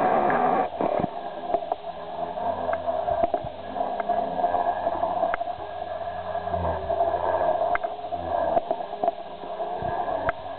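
Protos 500 electric RC helicopter in flight: steady whine of its motor and spinning rotor, shifting slightly in pitch as it manoeuvres, with a few short clicks.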